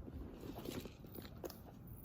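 Faint, irregular soft crackling with a few light taps, the small handling noises of someone studying at a desk.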